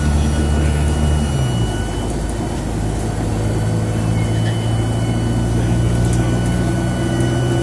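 Dennis Dart SLF bus engine running under way, with a thin steady turbocharger whistle over it. About a second and a half in, the engine note drops and settles at a lower pitch.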